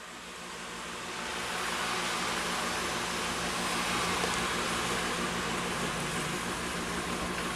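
Chicken stock poured from a carton into a hot skillet of bread cubes and sautéed vegetables, sizzling as a steady hiss that builds over the first couple of seconds.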